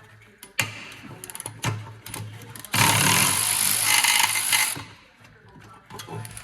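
A power tool runs in one burst of about two seconds, the loudest sound here, with scattered light metallic clicks and knocks of hand tools before and after it.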